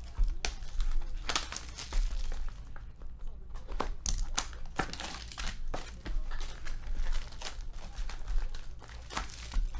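Plastic shrink wrap and a gold foil pouch crinkling as a shrink-wrapped wooden trading-card box is handled and opened, with scattered sharp clicks and knocks.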